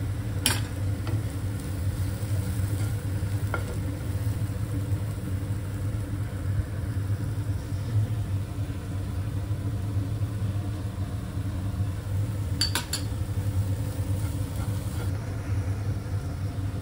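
Chopped vegetables sizzling in a non-stick frying pan while a spatula stirs and scrapes them, with a few sharp clicks of the spatula against the pan, one about half a second in and a short cluster near the end. Under it runs a steady low machine hum.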